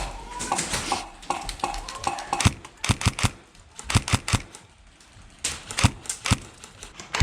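Airsoft guns firing: sharp, clicking shots in short strings of two to four rounds, coming in several bursts.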